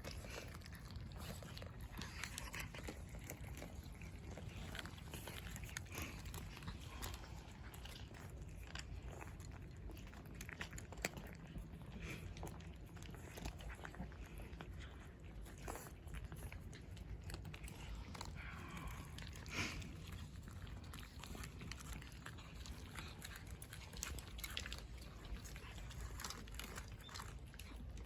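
Cats eating, with quiet, irregular chewing and crunching clicks throughout and a couple of louder bites.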